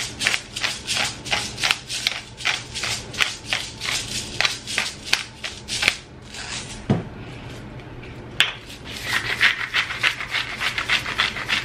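Hand-twisted salt and pepper grinders grinding over a dish: a run of quick rasping clicks, about three a second, then a pause with a single knock, then another faster run of grinding near the end.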